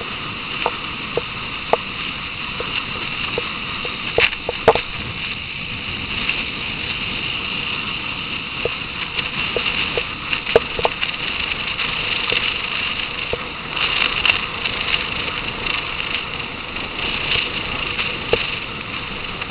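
Steady rushing wind and road noise of a moving motorcycle. Scattered sharp clicks and knocks sound through it, the loudest about four to five seconds in.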